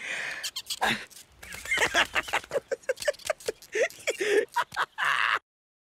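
An animated character's voice making a quick run of short, non-word vocal sounds, several a second, that cuts off suddenly near the end.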